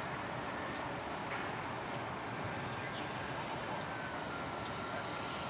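Distant electric RC plane, an E-flite Mini Ultra Stick, flying overhead: a faint motor-and-propeller whine that slowly falls in pitch, over a steady outdoor hiss.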